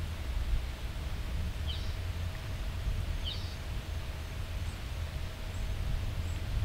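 Steady rain falling on leafy trees, a soft even hiss over a constant low rumble. A bird chirps twice, short bright notes about two seconds in and again a second and a half later.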